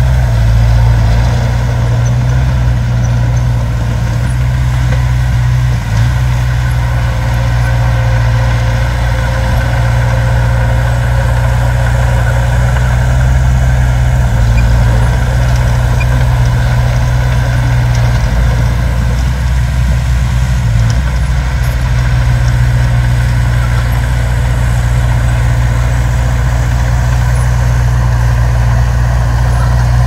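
Heavy diesel dump truck engine running steadily at low revs, a deep, even engine drone.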